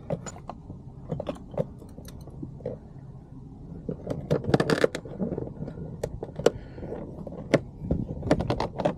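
Plastic interior door trim on a Chevy/GMC truck door being pried and pulled loose by hand: scattered plastic clicks, knocks and scrapes, busiest about halfway through and again near the end.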